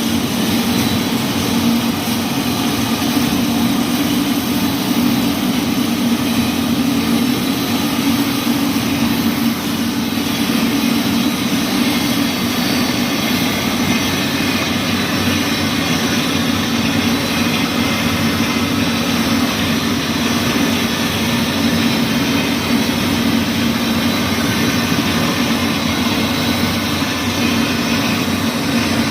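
Wire-making factory machinery running steadily: a continuous loud hum with a wide hiss over it, unchanging throughout.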